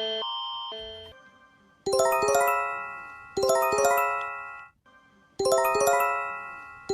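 Emergency-alert warning sounds: a pulsing alarm tone fades out in the first second. It gives way to a bell-like chime, a quick run of four or five struck notes left ringing, repeated three times about every one and a half to two seconds.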